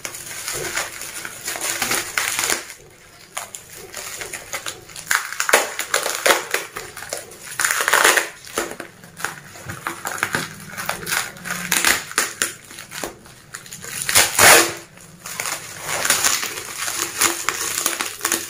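Plastic bubble wrap crinkling and rustling as it is pulled apart and peeled off by hand, in irregular crackly bursts, louder about eight seconds in and again near fourteen seconds.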